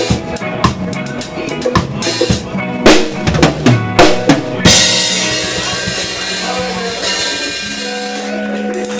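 Reggae drum kit played close up: a run of quick snare, kick and tom hits, then about halfway through a cymbal crash that rings on with a held chord from the band underneath.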